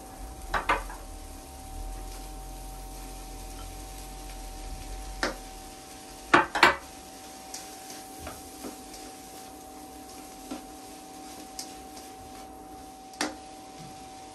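A cooking spoon knocking and scraping against a pan as onions are stirred in butter: scattered sharp clinks, the loudest a close pair about six and a half seconds in, over a steady faint hum.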